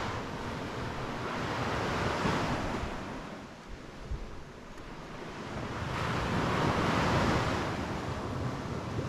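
Surf washing onto a beach, two swells of breaking waves about five seconds apart, with wind rumbling on the microphone throughout.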